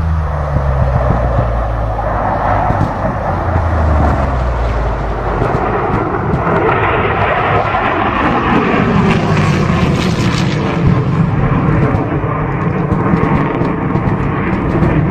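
Fighter jet in a flying display: a loud, continuous jet engine rush that swells in the middle and drops in pitch as the aircraft passes.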